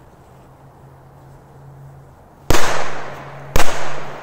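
Two sharp firecracker bangs about a second apart, a little past halfway through, each trailing off in an echo: a two-bang Korsar-4 firecracker going off.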